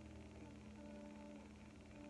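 Faint ambient background music: a steady low drone with soft held tones fading in and out above it.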